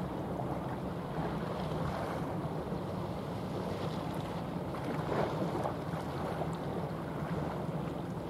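Wind rushing over the microphone and the wash of the sea, with a low steady drone underneath.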